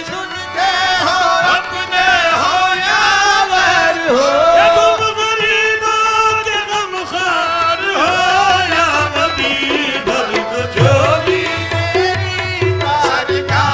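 Qawwali singing: a male lead voice sings long, ornamented phrases that slide between notes. A steady hand-drum beat comes in near the end.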